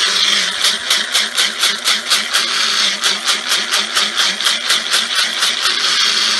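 Small electric grinder running, grinding hard elderberries to a fine powder. Its motor hums steadily while the berries rattle in the chamber, with a regular pulsing of about four or five beats a second as the grinder is shaken.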